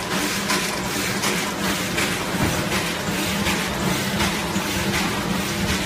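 JDZ-120 vertical blister cartoning machine running, a steady hum under a rhythmic hiss and clatter from its working cycle, about two to three strokes a second.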